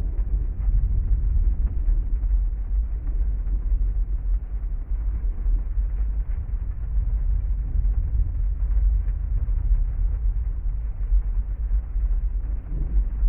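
Thunderstorm and heavy rain ambience: a steady, deep, muffled rumble with little treble and no separate claps.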